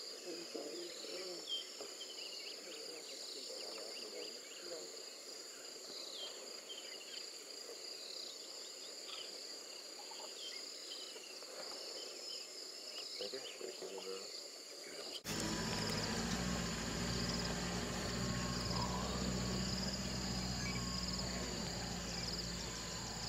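Steady high-pitched insect chorus with faint scattered chirps over it. About fifteen seconds in, the sound jumps louder and a low steady hum joins underneath.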